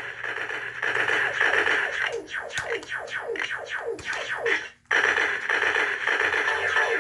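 Toy laser-tag guns firing electronic sound effects: a continuous buzzing stream with rapid falling "pew" sweeps, which cuts out briefly a little past the middle and then starts again.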